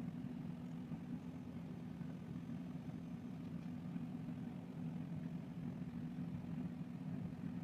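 Steady low hum, unchanging, with no other sounds on top.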